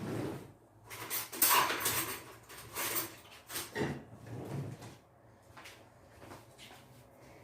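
Kitchen handling sounds: irregular knocks and scrapes of utensils and dishes, dying down after about five seconds.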